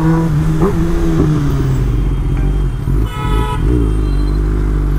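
Kawasaki ZX-10R's inline-four engine with an aftermarket exhaust running steadily at low revs in slow traffic. A vehicle horn toots briefly about three seconds in.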